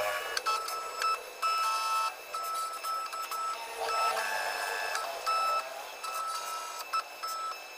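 Vinyl cutting plotter cutting a design: its motors whine in short stop-start tones as the blade carriage moves back and forth and the vinyl is fed in and out, with small clicks between moves.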